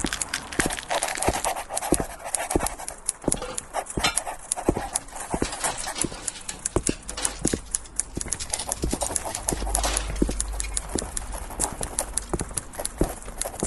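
Many sharp clicks and knocks at an irregular pace, over a faint hiss, with a low rumble swelling up about ten seconds in.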